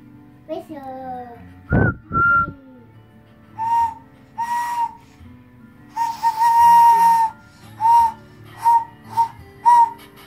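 A toddler blowing a small plastic whistle in a string of short toots, about seven in all, one of them held for about a second. In the first two seconds there are a few squeaky gliding sounds before the toots begin.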